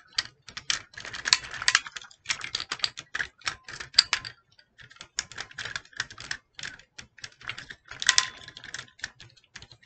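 Plastic Optimus Prime transforming action figure being handled and transformed: its parts clicking and rattling in quick, irregular clicks as an arm is folded out, with a short lull about halfway through.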